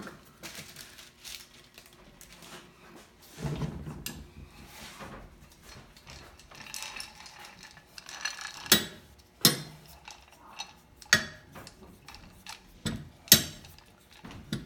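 Heavy steel C-clamps being handled and tightened on a glued-up stack of wood blocks: a run of sharp metal clinks and knocks, most of them in the second half, over a soft rustling.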